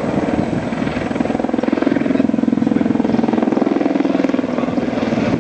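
AgustaWestland AW101 Merlin helicopter in flight, its main rotor beating rapidly and steadily. A strong steady hum from the helicopter comes up about a second in and fades near the end.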